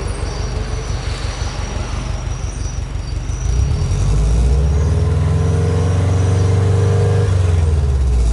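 Subaru Impreza WRX STi's turbocharged flat-four engine idling with an uneven beat at the exhaust, then revved up about three and a half seconds in. It is held at a raised, steady speed for about four seconds, easing off near the end.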